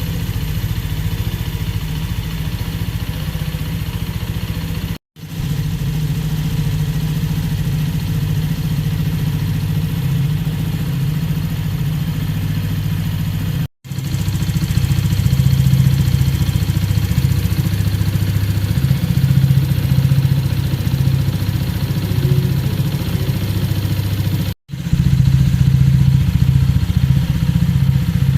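Benelli Keeway SR 125's 125 cc single-cylinder engine idling steadily. The sound breaks off for an instant three times and is louder over the second half.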